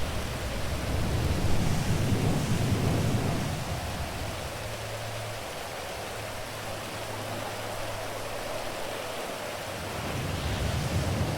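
Steady rain with rolling thunder: a low rumble that fades over the first few seconds and rises again near the end.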